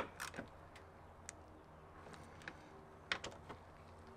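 Sparse small clicks and taps from a hand tool working at the screws of a camper's corner trim: one sharp click at the start, then a handful of faint ones spread out, with a pair about three seconds in.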